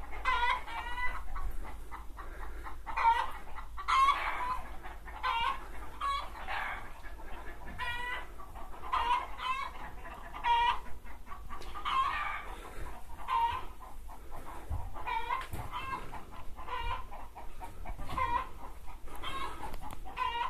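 Chickens clucking: many short, pitched calls, one every second or so.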